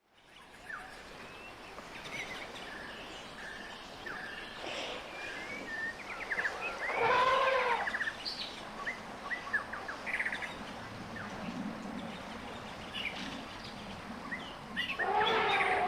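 Outdoor ambience with birds chirping in short, scattered calls. A louder, arching pitched call comes about seven seconds in, and another begins near the end.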